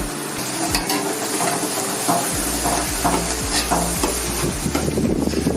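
Chopped waterleaf sizzling as it fries in hot palm oil in a pot, with a spoon stirring and scraping through it.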